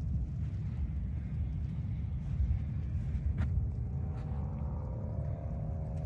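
Pickup truck in deep snow: a steady low rumble, with a faint whine slowly rising in pitch from about four seconds in.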